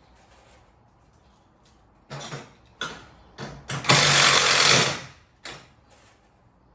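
Cordless power driver spinning for about a second to drive a screw through a garage door hinge into the panel, preceded by a few short knocks of handling the hinge and tool.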